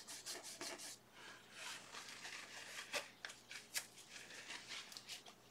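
A flat brush scrubbing oil paint across textured canvas: a run of short, scratchy strokes, several a second, that stops shortly before the end.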